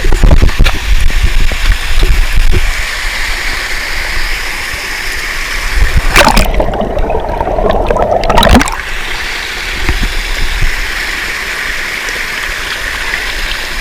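Fast stream water rushing and splashing below a waterfall, picked up by a GoPro in its waterproof case. About six seconds in, the sound turns muffled and gurgling for a couple of seconds as the camera is dipped under the water, then the open rush returns.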